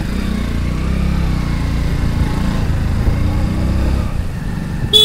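Hero Splendor motorcycle's single-cylinder four-stroke engine running steadily as the bike rides along, heard from the bike itself.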